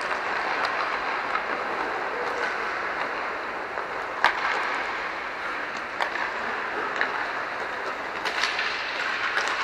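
Inline hockey play: a steady rolling hiss of skate wheels on the rink floor, broken by scattered sharp clacks of sticks striking the puck, the loudest about four seconds in.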